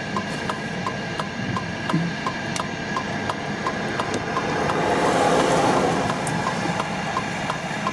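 Car hazard flasher ticking steadily, about three clicks a second, inside the vehicle cabin over an idling engine. A rushing noise swells up around five seconds in and fades again.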